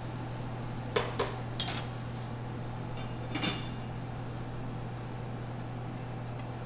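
Steel tweezers and an offset spatula clinking lightly against ceramic bowls, about four short clinks in the first half, over a steady low hum.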